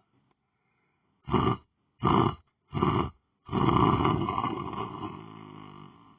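A person snoring loudly: three short snores a little under a second apart, then a long one that slowly fades out.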